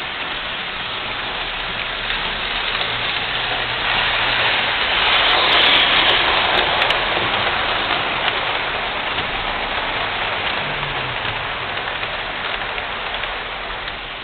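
Model train running on metal track, a steady rushing rattle of wheels and motor that grows louder as the coaches pass close by, loudest about six seconds in, then fades as the train moves away.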